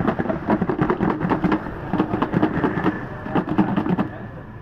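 Rapid, irregular clattering and rattling that stops abruptly about four seconds in.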